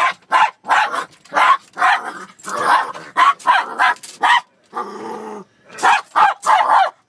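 Dog barking in quick repeated bursts, about three a second: guard barking at a stranger, urged on with 'get him'. The barking breaks off briefly about five seconds in for a short low growl, then starts again.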